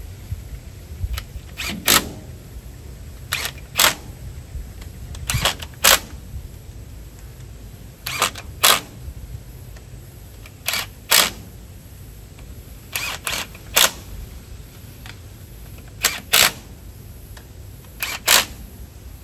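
Hand socket ratchet clicking in short bursts, mostly two close together, every two to three seconds, as bolts are worked in and out.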